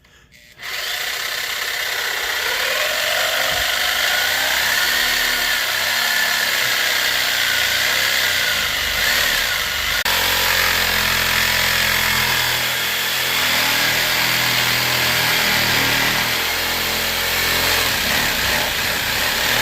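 Reciprocating saw (Sawzall) running continuously as it cuts through an old drain stack pipe, starting abruptly about half a second in.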